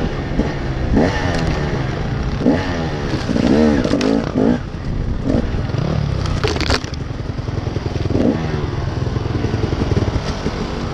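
Dirt bike engine running, its revs climbing and dropping again and again as the throttle is worked on a rough sandy trail. A brief scraping burst about six and a half seconds in.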